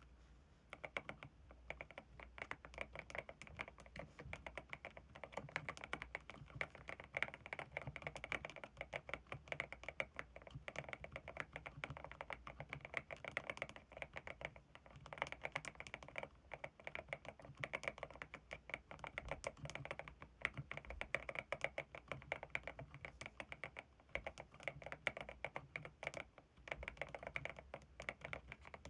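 Mechanical keyboard, a GMK67 with Haimu Midnight switches, being typed on continuously: a fast, dense run of key clacks.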